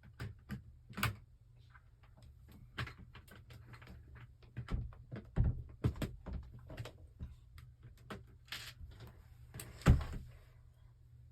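Lego bricks being handled: a string of irregular small plastic clicks and knocks as pieces are picked up, set down and pressed together, with one sharper knock near the end.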